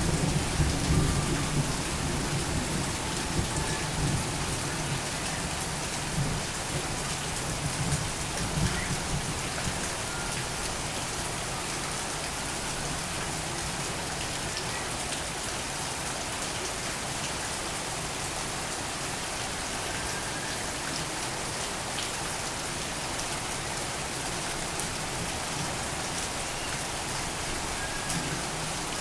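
Torrential rain falling steadily, with the low rumble of thunder dying away over the first several seconds.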